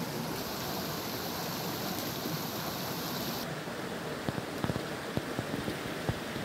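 Mountain stream rushing over rocks, a steady wash of water noise. From about four seconds in, a scatter of short crackles and knocks sits on top of it.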